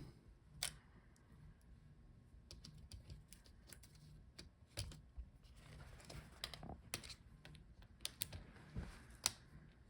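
Faint, irregular small clicks and taps of laptop cable connectors and latches being worked by hand as cables are unplugged from the motherboard, with a few louder clicks scattered through.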